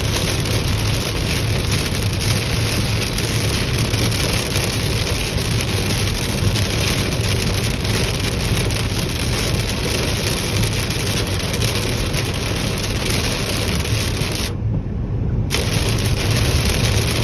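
Heavy rain pouring down on a moving car, a dense steady hiss over a low road-and-engine hum. About three-quarters of the way through, the rain noise cuts out for about a second, leaving only the low hum, then returns.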